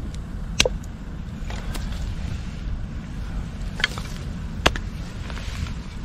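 Wind buffeting the microphone as a steady low rumble, with a few sharp clicks and knocks spread through it.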